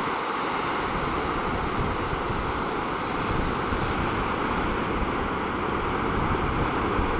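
Sea surf breaking and churning over and around shoreline rocks: a steady rush of water, with wind buffeting the microphone underneath.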